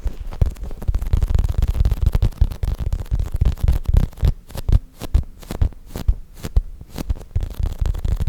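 Soft squishy toys squeezed and handled close to the microphone: a rapid, irregular run of low thuds and rumbles with small crackling clicks.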